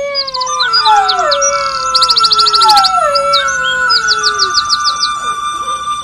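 Bird-like chirps and rapid high trills over three long falling whistled glides and held steady tones.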